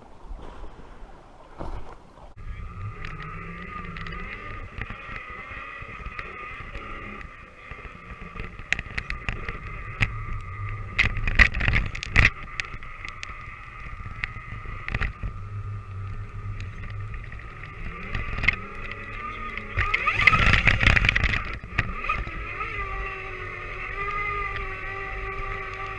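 Danchee RidgeRock RC truck's electric motor and gears whining steadily as it drives through snow, heard from a camera riding on the truck, with scattered sharp knocks and rattles as it bumps along. About twenty seconds in there is a louder noisy rush lasting a second or two.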